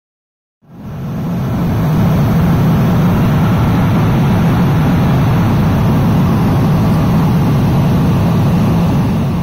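Airliner cabin noise: a steady, loud rumble of jet engines and rushing air. It fades in about a second in and begins fading out at the very end.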